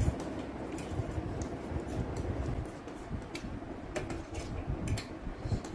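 Eating sounds: a fork clicking lightly against a steel plate several times, scattered irregularly, over low knocks and handling noise from the plates and table.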